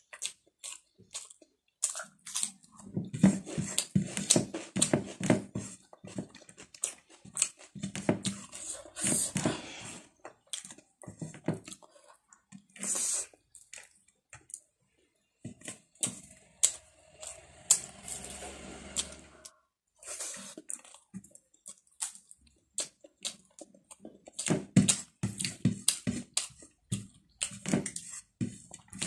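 Close-miked eating by hand: wet chewing and lip smacking on a mouthful of chamre bhat, a spiced rice dish, coming in bursts of quick clicks and smacks with short quiet gaps.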